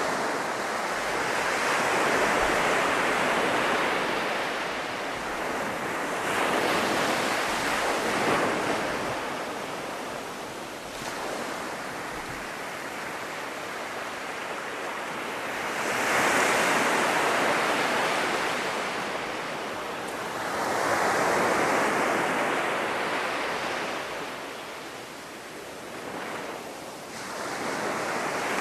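North Sea surf breaking on a sandy beach, each wave swelling and fading in slow surges every few seconds.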